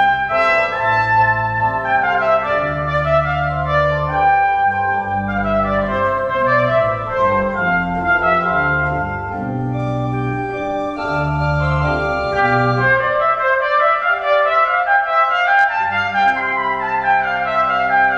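Trumpet and pipe organ playing a piece together, with sustained pitched notes over low organ bass notes that drop out for a couple of seconds about two-thirds of the way through.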